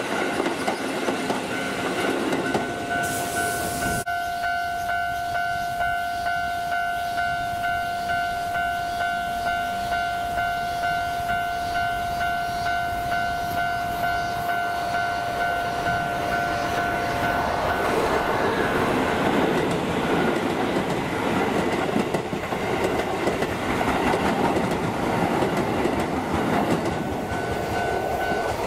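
Keisei electric commuter trains on the line: a silver train clatters away over the rail joints in the first few seconds. A steady, pulsing electronic tone then holds for about 13 seconds. From about 18 seconds in, Keisei 3000-series set 3006 runs past with a louder rumble and wheel clatter.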